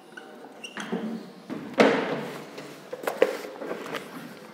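A few sharp knocks and handling sounds from someone moving about at a whiteboard with a marker and a book, echoing in the room. The loudest knock comes about two seconds in, another just after three seconds.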